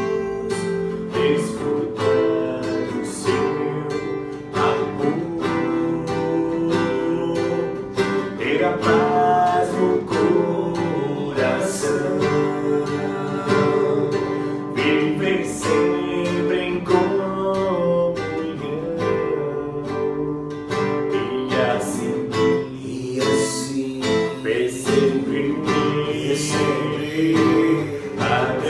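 Acoustic guitar music: strummed chords under a plucked melody line, in an instrumental passage of a worship song.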